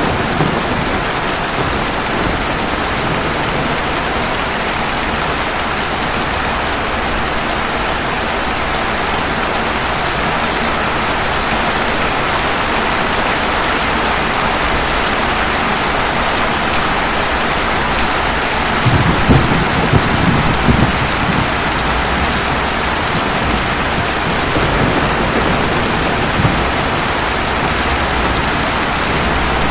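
Steady heavy rain, with a low rumble of thunder lasting about two seconds roughly two-thirds of the way through.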